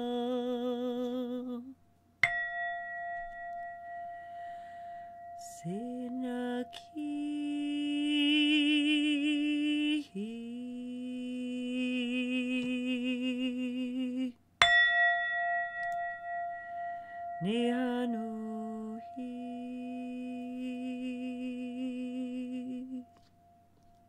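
A woman's voice toning long held vowel notes with a wavering vibrato, gliding up into each note. A metal bell is struck twice, about two seconds in and again in the middle, and each strike rings on as one long steady tone under the voice.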